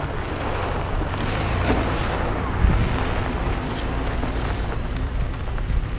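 SUV driving along a gravel dirt track, heard from a camera mounted outside on the body: a steady rush of wind on the microphone over low tyre and road rumble, with a few knocks from the rough ground.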